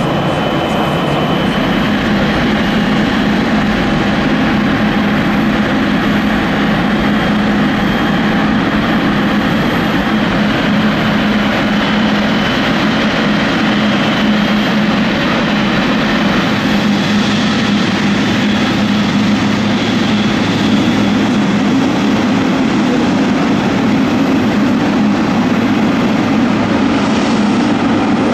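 Boeing 777's jet engines running: a loud, steady noise with a constant low hum and a faint high whine, holding level with no clear rise or fall.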